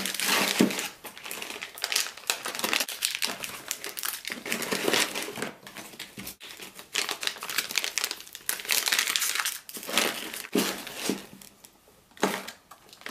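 Empty MRE packaging, the plastic pouches and wrappers, crinkling and rustling in irregular bursts as it is crumpled and stuffed back into the meal bag, briefly quieter near the end.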